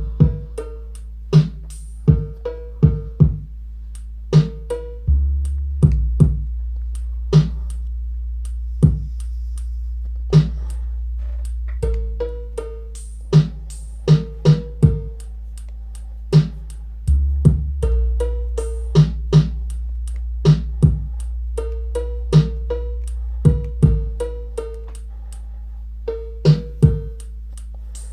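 Drum-machine music demonstrating cowbell sounds: sharp, short-ringing cowbell strikes in an uneven rhythm over a sustained synthesizer bass.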